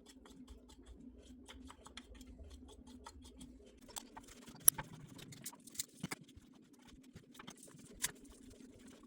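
Faint scattered clicks and scrapes of a knife scoring the membrane on the bone side of raw baby back pork ribs on a wooden board, with a sharper tap about four and a half seconds in and another near the end.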